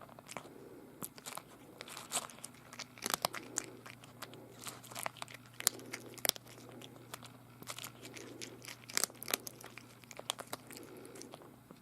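Cat eating, crunching and chewing its food in irregular bites, with a faint steady hum underneath.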